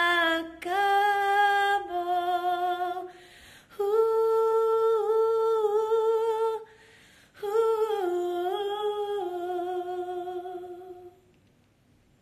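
A woman singing unaccompanied, holding long notes with vibrato and sliding between pitches, in several phrases with short breaths between them. The voice trails off about eleven seconds in.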